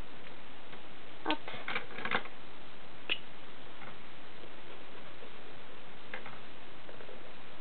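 Several light, sharp clicks and taps of pens being handled, about a second to two seconds in and once more around three seconds, as a black pen is put down and a light blue one taken up; a few faint ticks near six seconds. A steady hiss lies under it all.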